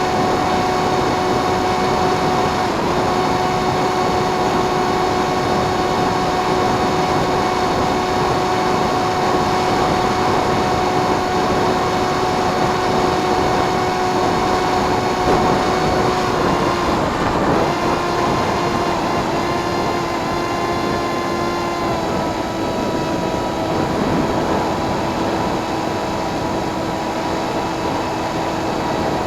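RC plane's motor and propeller whining steadily in flight over a rush of wind noise. The pitch dips and steps down a few times about two-thirds of the way through as the throttle is eased back.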